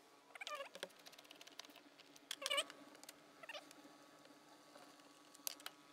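Socket ratchet on an extension loosening a 10 mm bolt: faint light clicks with three short squeaks as the bolt turns, the loudest about two and a half seconds in, and a sharper click near the end.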